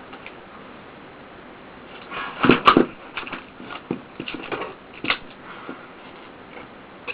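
Plastic packaging crackling and crinkling as the clear plastic sheet is peeled back from an iPod nano's retail case. There is a burst of loud crackles about two and a half seconds in, then scattered lighter crinkles and clicks.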